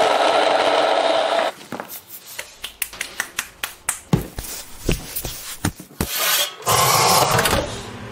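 A loud rasping, scraping noise, then a run of sharp clicks and cracks, then a second burst of rasping near the end.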